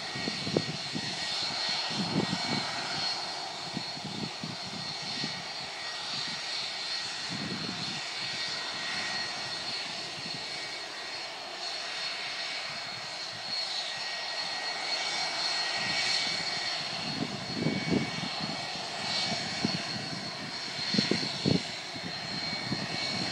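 Distant jet airliner engines running on the airfield: a steady noise with a high, even whine, broken by irregular low rumbling bumps.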